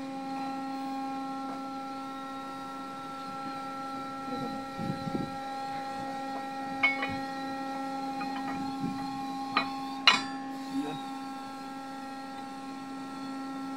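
Steady machinery hum, with several sharp metal clinks and knocks as the brake-test bracket and pin are fitted to a mooring winch drum; the loudest knock comes about ten seconds in.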